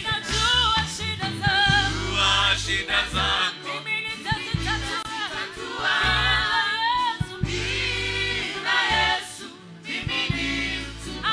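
Gospel music with group singing over a bass line: a praise song.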